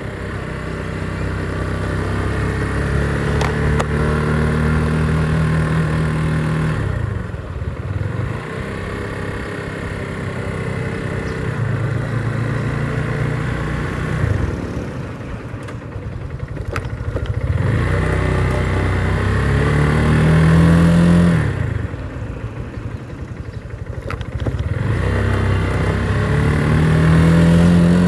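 Motorcycle engine riding on the road, its pitch climbing as it accelerates and then dropping back, about four times over as the rider eases off or changes gear.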